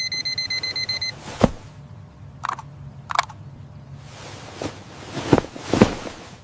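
Electronic alarm clock beeping, a rapid train of high beeps that cuts off about a second in. A sharp hit follows, then two short blips and sweeping whoosh-like effects with two sharp hits near the end.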